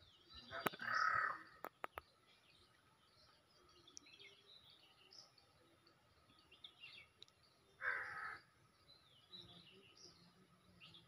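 A crow cawing twice, a harsh call about a second in and another about eight seconds in, over faint chirping of small birds. A few sharp clicks sound in the first two seconds.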